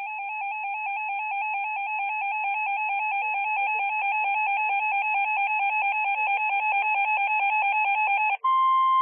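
Electronic emergency-alert warble: a rapidly alternating two-pitch tone that grows steadily louder. Near the end it switches to a steady single tone for about a second, as an alert tone comes in ahead of a new weather warning.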